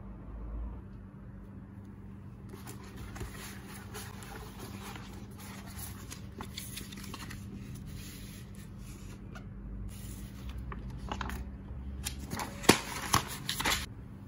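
Paper rustling and crinkling as large sheets are handled, with a few sharp clicks and taps near the end, over a faint steady hum.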